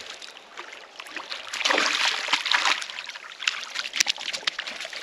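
Hooked carp splashing and thrashing in shallow river water as it is reeled in and dragged ashore, with many short sharp splashes, loudest about two seconds in.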